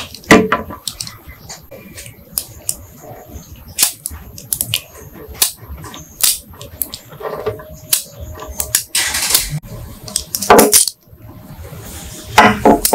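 Sharp metallic clicks and clacks of a restored chrome pistol being worked by hand as its moving parts snap into place, with a longer rasp about nine seconds in.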